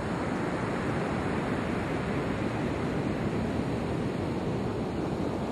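Ocean surf breaking and washing onto a beach in a steady rush, with wind on the microphone.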